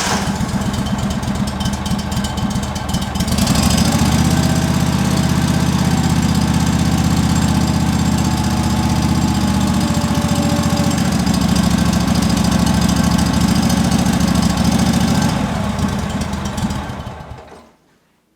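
Tractor engine running just after starting. It steps up louder about three and a half seconds in, runs steadily, then is shut off and winds down near the end.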